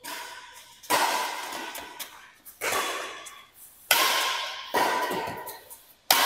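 Badminton rackets striking a shuttlecock in a rally: about six sharp hits, one every second or so. Each hit rings on in the echo of a large metal-walled hall.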